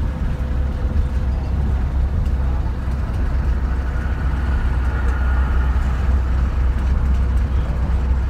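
Steady low road and engine rumble heard from inside a moving vehicle.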